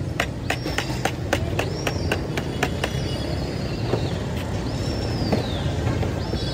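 Street traffic rumbling steadily, with a quick run of sharp clicks at about four a second for the first three seconds and several short high squeals that rise and then fall.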